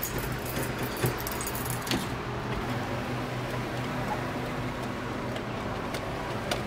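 Light metallic clinks and a few sharp clicks from hands working inside an open vending machine's cabinet, over a steady low hum. The clinking fades after about two seconds, and one more click comes near the end.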